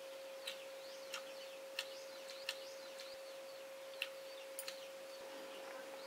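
Metal chopsticks clicking against a plate, about half a dozen sharp clicks a second or so apart, over faint bird chirps and a steady faint hum.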